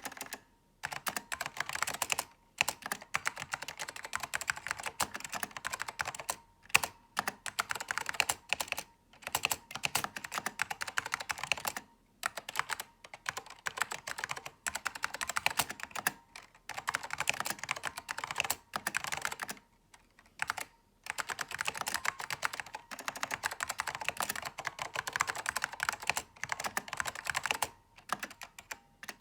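Apple Keyboard M0116 J with Alps orange switches being typed on in quick runs of clicky keystrokes, with brief pauses between runs. The uploader hears it as slightly high and light, with a metallic ping on key release that adds noise.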